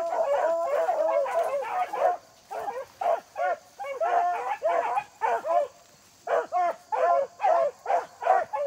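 Beagles baying on a rabbit's trail. At first the bays come thick and overlapping, then they thin to single bays with short lulls, about two seconds in and again near six seconds.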